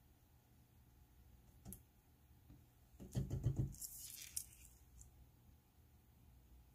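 Handling sounds at a craft table as a sheet of paper is shifted and turned on a cutting mat: a single click, then a quick run of rattling knocks about three seconds in, followed by a brief high scrape and another faint click.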